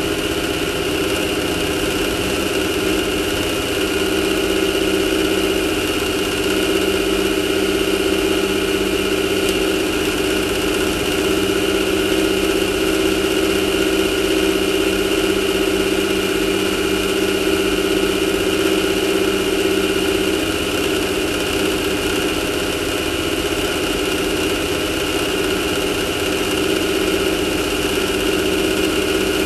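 Off-road race car's engine idling steadily, holding one even pitch with no revving.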